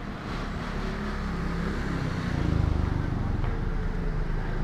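A motor vehicle's engine running steadily with a low hum, growing louder from about two seconds in.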